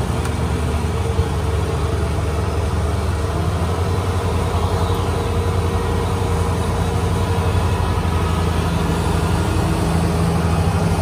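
Diesel engine of a Kubota DC-70 combine harvester running steadily under load as the tracked machine climbs a muddy field bank. Its low hum grows a little stronger toward the end as the combine comes close.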